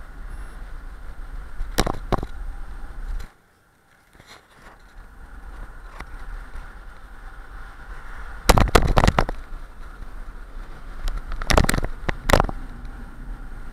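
Wind rumbling on a bike-mounted action camera's microphone while riding a road bike. It is broken by sharp knocks and clattering rattles as the bike and camera mount jolt over bumps, with the loudest run of rattles around eight to nine seconds in. The rumble drops away briefly about three seconds in.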